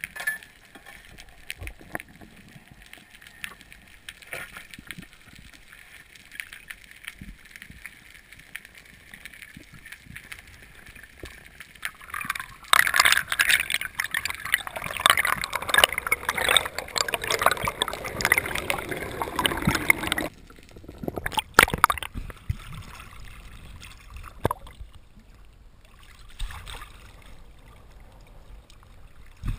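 Underwater sound heard through a camera's waterproof housing: faint crackling and ticking at first, then about halfway through a loud rushing, bubbling noise of water moving past the camera that lasts some seven seconds and cuts off suddenly. After it come quieter water sounds with a few scattered clicks.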